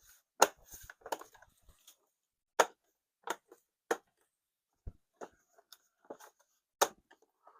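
Irregular clicks and knocks of a heat pump interface box's cover and parts being handled and fitted back together, with one dull thump in the middle.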